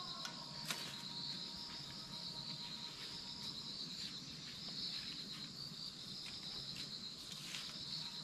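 Steady high-pitched chorus of insects trilling, with a few faint clicks.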